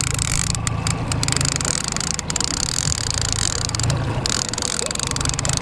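Fishing reel being cranked to bring in a hooked fish: a fast, continuous clicking from its gears, over a steady low rumble.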